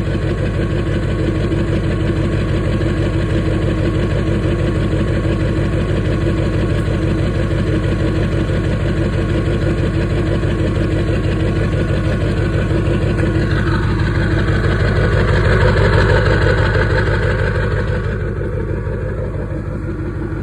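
A 7.3L turbo diesel V8 idling with an even diesel clatter. Some two-thirds of the way in it is revved: the turbo whistle rises with the revs, and then the engine settles back toward idle near the end.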